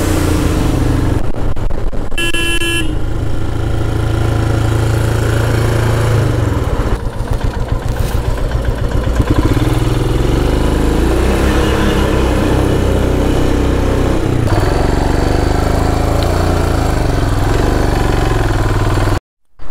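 Motorcycle engine running steadily under way in traffic. A vehicle horn honks once, briefly, about two seconds in. The sound cuts off suddenly near the end.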